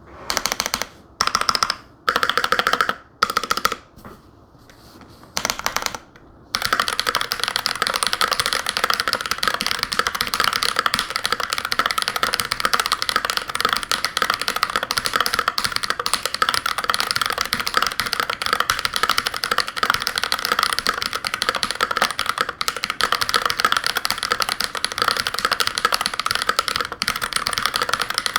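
Typing on a GMMK Pro mechanical keyboard with a brass plate and Holy Panda tactile switches. Several short bursts of keystrokes come first, then continuous fast typing from about six seconds in.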